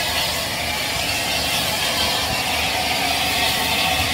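Bulleid Battle of Britain class steam locomotive 34081 '92 Squadron' standing at the platform in steam, with a steady hiss and a low rumble beneath it.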